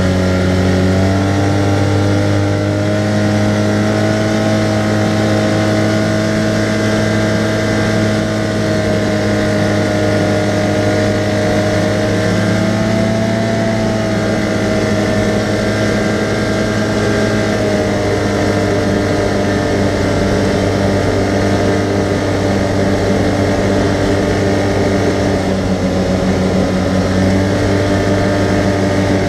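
Arctic Cat side-by-side's engine running under way, heard from on board. It picks up speed just as the sound begins, then cruises at a fairly steady pitch with small rises and falls.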